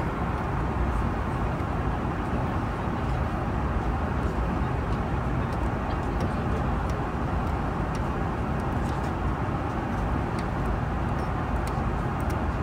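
Steady, even rumble of a vehicle in motion, with a few faint ticks.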